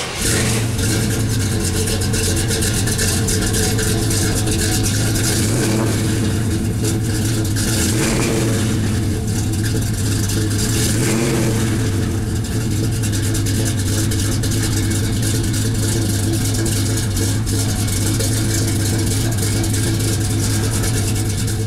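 Small-block 350 V8 with headers and true dual exhaust, running steadily out of the dual tailpipes. It sounds plenty healthy.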